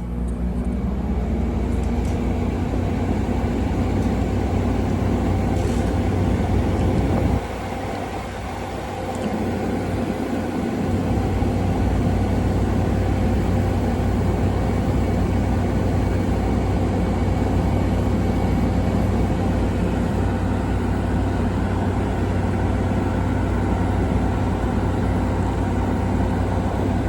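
2016 Frigidaire window air conditioner running, a steady low hum under an even fan rush. About seven seconds in, the low hum suddenly drops away, then builds back a few seconds later.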